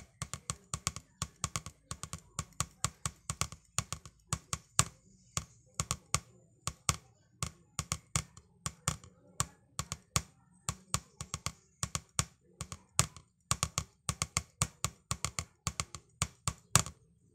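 Wooden drumsticks tapping a drum practice pad in a steady rhythm, about four to five sharp taps a second with some quick doubles, stopping just before the end.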